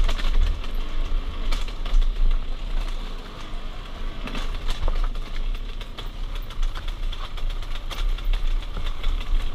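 Enduro dirt bike engine running at low revs, with many scattered sharp clicks and knocks. The engine is a little quieter in the middle, then picks up again.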